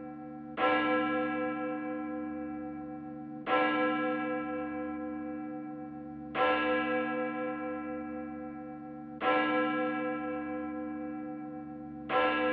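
A bell tolling slowly: five strikes about three seconds apart, each ringing on with a wavering hum and fading until the next strike.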